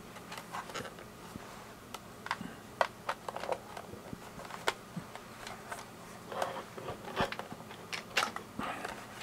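Scattered small clicks and rustles of hands handling a plastic Kodak EasyShare camera dock and its power cord while it is being plugged in.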